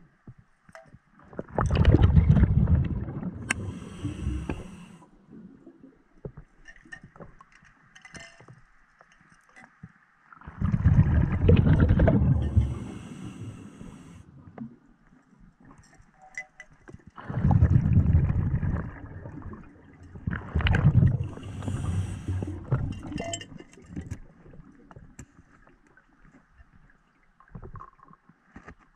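Scuba diver breathing underwater through a regulator: four bursts of exhaled bubbles rumbling, several seconds apart, the first three each followed by a hiss.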